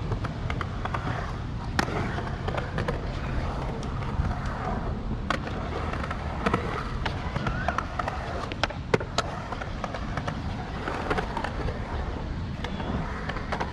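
Skateboard wheels rolling on concrete with a steady rumble, broken by frequent sharp clacks and knocks from boards and trucks hitting the surface.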